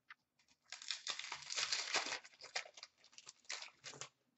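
Upper Deck hockey card pack wrapper crinkling and tearing as it is ripped open, a dense crackle that starts about a second in and runs for about three seconds.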